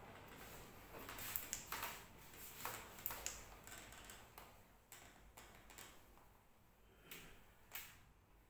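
A series of faint clicks and light knocks, about a dozen at irregular intervals, thinning out toward the end.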